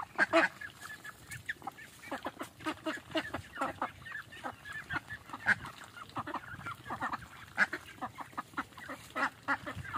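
A group of ducks and ducklings calling with many short, irregular quacks as they feed.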